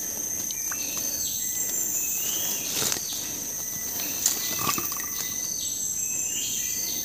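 A steady, high-pitched insect chorus, with a few short knocks and rustles as the wire-mesh fish trap is handled in the stream.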